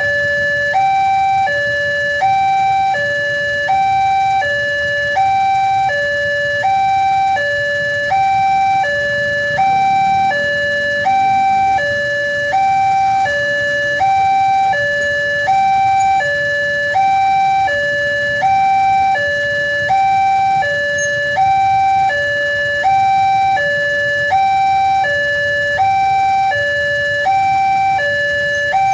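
Railway level-crossing warning alarm: a loud electronic two-tone signal alternating steadily between a higher and a lower note, each held under a second, warning that a train is approaching.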